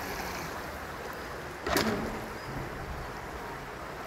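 Steady rush of water, with a sudden, brief loud burst of noise a little under two seconds in.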